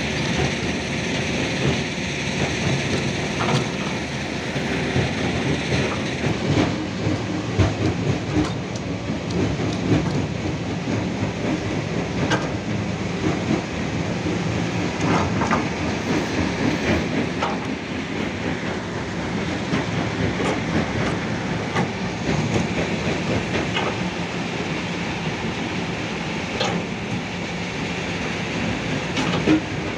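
Hitachi Zaxis 210F hydraulic excavator working: its diesel engine runs steadily under load while the boom and bucket dig. Scattered metal clanks and knocks sound every few seconds over the engine.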